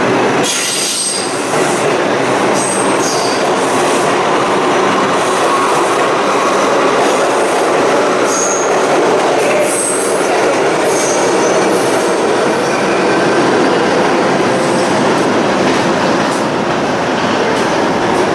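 New York City subway train running on the Lexington Avenue line tracks: a steady loud rumble of wheels on rail, with short high-pitched wheel squeals coming and going.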